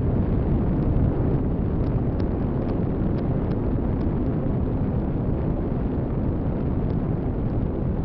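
Steady rushing wind noise from airflow buffeting the onboard camera microphone of an RC glider in flight, with a few faint ticks; no motor tone.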